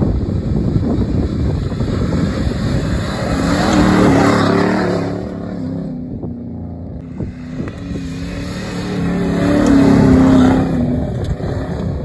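Off-road truck engines revving hard as they power up sand dunes, swelling to a peak about four seconds in and again near ten seconds. Wind rumbles on the microphone underneath.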